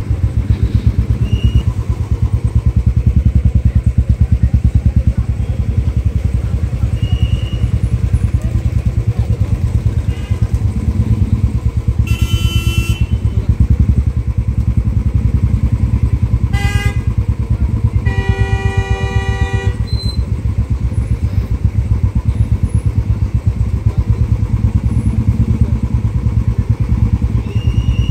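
Motorcycle engine idling close by with a rapid, even beat, amid traffic. Vehicle horns sound three times: about a second long near the middle, then a short toot, then a longer blast of about two seconds.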